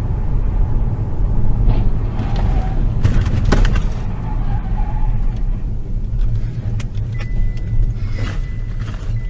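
Road and engine rumble heard inside a moving car, with a cluster of sharp knocks about three seconds in as the car ahead crashes. A thin, steady high beep starts about seven seconds in.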